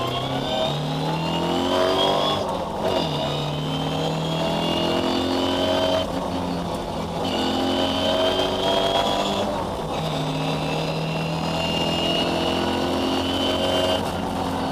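Ford Escort rally car's engine heard from inside the cabin, pulling hard and climbing in pitch, with a short break about every three to four seconds before it climbs again.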